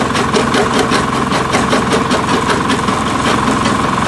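Diesel-driven jaw crusher at work: a steady engine drone under an irregular clatter of stone being crushed and gravel pouring out of the discharge.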